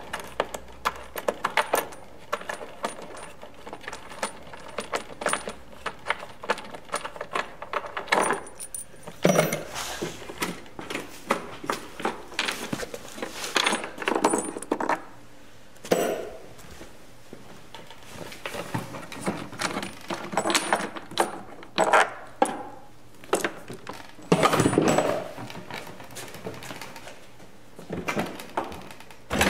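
Thumb screws and wing nuts being worked loose by hand on a Kaivac 1750 cleaning machine, with small metallic clicks, taps and clatter, and a handful of louder knocks as the plastic control box and hoses are handled.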